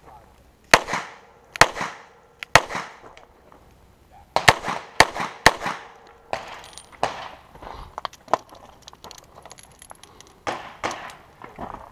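Semi-automatic pistol firing: three shots about a second apart, then a quicker string of about four shots, each with a short echo. Softer knocks and shuffling follow as the shooter moves.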